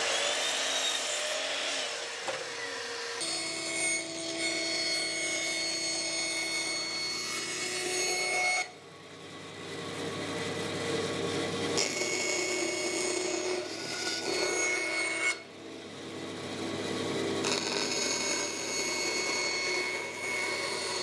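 A Bosch sliding mitre saw cuts through birch plywood and winds down over the first three seconds. Then a bandsaw runs steadily, trimming the excess off a birch plywood blank, its sound dropping away briefly twice.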